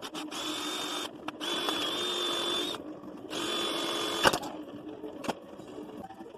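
Power drill run in three short bursts, a steady high motor whine each time, drilling into a Maglite flashlight to get a stuck battery out. A sharp knock comes at the end of the third burst.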